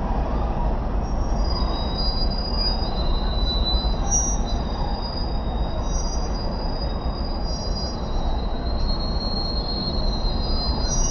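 Steady rumble of heavy road traffic, with several high squealing tones that come and go above it.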